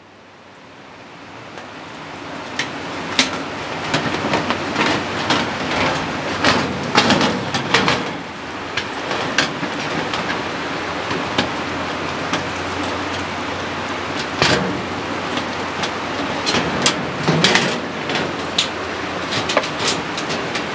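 Small metal clicks and knocks of bolts being fitted through the aluminium door of a Big Chief front-load electric smoker to mount its handle, over a steady background hiss that fades in over the first few seconds.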